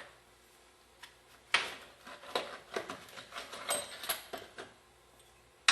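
Small loose parts clinking and rattling as a hand rummages through a parts can for a check-valve ball and spring. A sharp clatter comes about a second and a half in, followed by a run of lighter clicks and taps.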